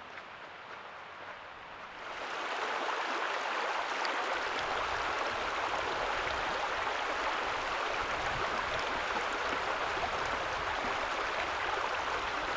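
A shallow, rocky mountain stream rushing steadily, coming in suddenly about two seconds in after a faint hiss.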